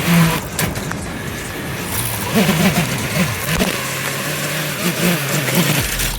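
FPV quadcopter motors and propellers revving up and down in flight over a broad hiss, with the pitch wavering in quick rises and falls twice in the middle.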